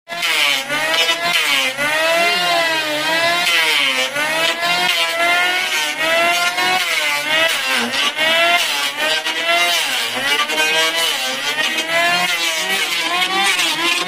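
Electric hand planer running while it is pushed along a wooden board, planing it down. Its motor whine rises and falls in pitch about once a second as the cutter takes and sheds load, over the rasp of cutting wood.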